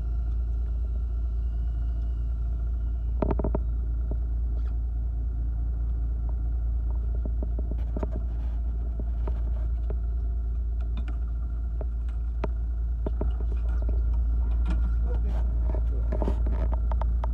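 Steady low rumble aboard a small fishing boat, with scattered light knocks and clicks from handling as a hooked grunt is brought up and landed; the loudest knock comes about three seconds in.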